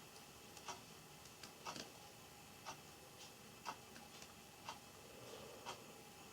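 Clock ticking once a second, with a few fainter irregular clicks between the ticks.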